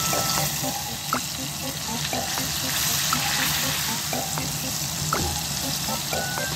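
Battered chicken pieces deep-frying in hot oil in a small saucepan during their second fry: a steady sizzle of vigorously bubbling oil.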